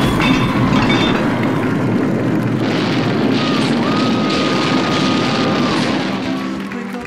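Loud, steady rumbling crash noise, a dubbed-in sound effect of a house collapsing, with a thin held whistle-like tone in the middle. It eases off about six seconds in as music comes in.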